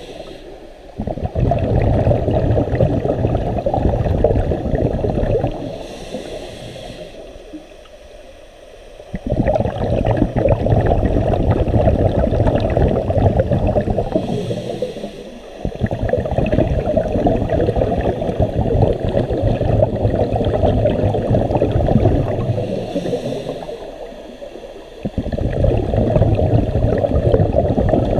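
Scuba regulator exhaust bubbles gurgling underwater, heard through an underwater camera: long spells of bubbling with each exhaled breath, with quieter gaps between breaths.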